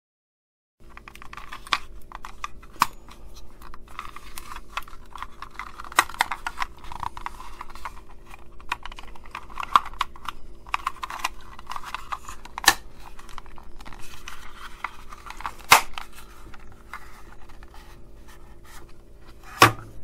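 Plastic housing of a remote-controlled mains socket being handled and pressed back together: rubbing and scraping with sharp plastic clicks every few seconds. Near the end, a knock as the unit is set down on the wooden desk.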